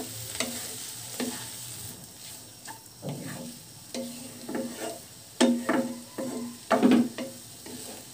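Wooden spatula stirring and scraping grated radish and scrambled egg around a non-stick frying pan, over a light sizzle of the fry. A string of separate scrapes, loudest about five and a half and seven seconds in.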